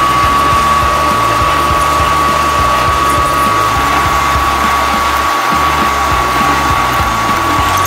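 Drill press running steadily with a constant high whine as its twist bit bores into a metal part held in a vise, over background music.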